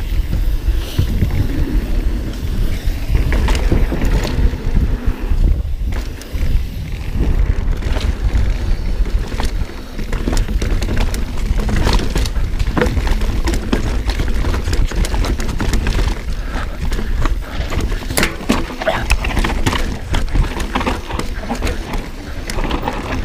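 Mountain bike being ridden down a rough trail, heard from a camera on the rider: a steady low rumble of wind and tyres on the microphone, with frequent clattering knocks as the bike rattles over rough ground.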